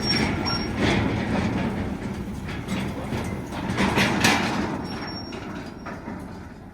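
A vehicle running with a steady rumble and a loose metallic rattling clatter, fading away near the end.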